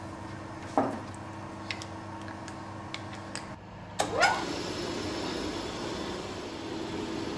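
A few sharp clicks and knocks from handling quick-grip clamps. About four seconds in, the rotary switch on a milling machine's induction motor clicks on, and the motor spins up with a quick rising whine, then runs steadily.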